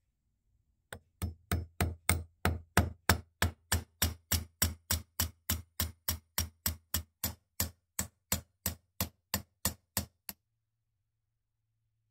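Hammer tapping a pin punch to drive out the pin in the turn-screw hub of a Millers Falls 207 bench drill: a steady run of about thirty sharp metal taps, roughly three a second, stopping about ten seconds in.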